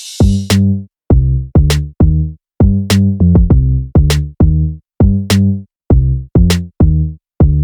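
Electronic background music: a drum-machine beat with short, clipped pitched notes in a steady rhythm and a sharp click about once a second.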